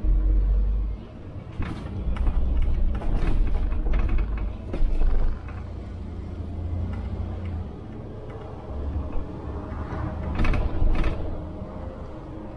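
City bus driving, heard from inside: uneven low engine and road rumble with scattered rattles and knocks from the bus body.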